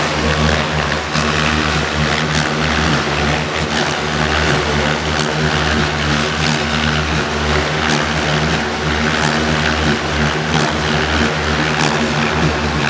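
Radio-controlled aerobatic helicopter flying close by, its main rotor and motor giving a loud, steady whir whose pitch wavers slightly as it holds a tail-down hover, with short sharp cracks every second or so.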